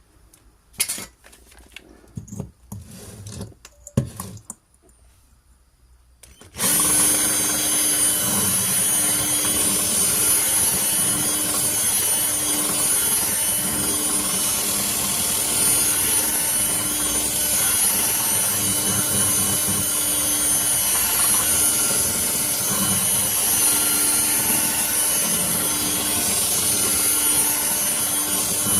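A few handling knocks and clicks, then about six and a half seconds in an electric drill starts and runs steadily, its bit grinding a hole into a glass jam jar with a constant hum and a loud hissing scrape.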